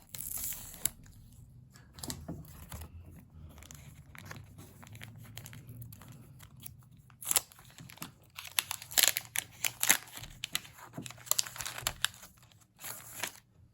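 Packaging being handled and torn open by hand: a run of crinkling, tearing crackles, sparse at first and thickest in the second half.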